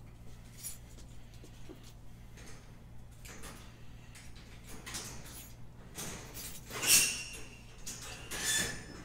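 Sealed boxes of trading cards being handled on a table: faint rustling and knocking, then two louder squeaky scrapes, the loudest about seven seconds in and another a second and a half later.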